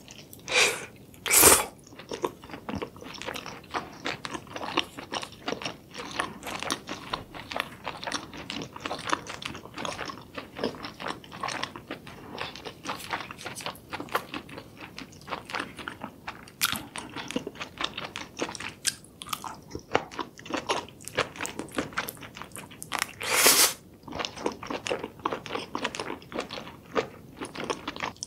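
Close-miked biting and chewing of spicy-sauced seafood such as octopus tentacle: a constant run of wet smacks and small crunchy clicks, with a few longer, louder wet sounds near the start and again about two-thirds of the way through.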